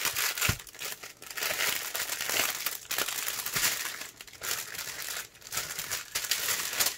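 Clear plastic wrap crinkling and crackling continuously as it is unrolled and pulled off a bundle of small bagged diamond-painting drills.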